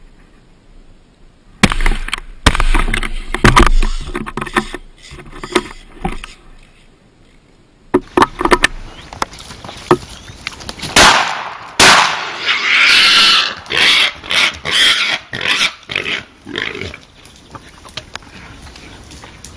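Wild boar grunting and squealing, mixed with loud sharp cracks and knocks. The loudest crack comes about halfway through, followed by a harsh, rasping squeal lasting a couple of seconds.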